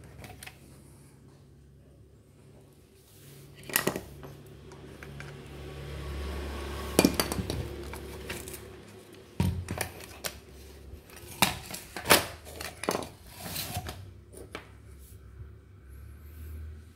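Metal parts of a disassembled rotary hammer drill clinking and knocking as they are handled on the workbench, a dozen or so separate knocks with the loudest about seven and twelve seconds in, over a low steady hum.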